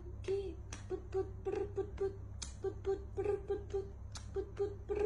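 A bird giving quick runs of short, pitched, chattering calls, several notes a second, over a steady low hum.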